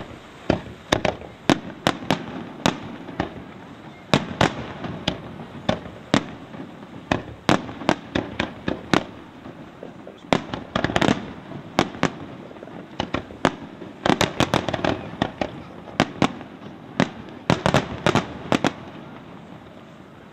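Aerial display firework shells bursting in a fast, uneven run of sharp bangs, two or three a second, with a rumble between them. The bangs come thickest about eleven seconds in and again around fourteen to fifteen seconds.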